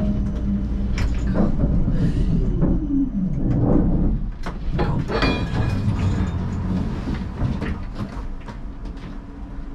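Siemens Combino C1 tram braking to a stop: the electric traction drive's whine falls steadily in pitch and dies away, over a low running rumble. As the tram comes to rest, a short run of sharp clicks and clunks follows, about halfway through.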